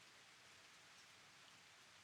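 Faint, steady rain: an even hiss with a few light drop ticks.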